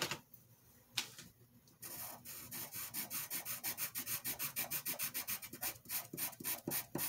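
Kalour soft pastel pencil rubbing on paper in rapid back-and-forth strokes, several a second, starting about two seconds in: the cringy sound these pastel pencils make. A single click comes about a second in.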